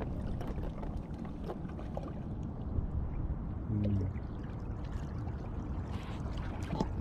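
Seawater lapping and sloshing against the boulders of a rock breakwater, a steady washing sound, with a brief low voice just before four seconds in.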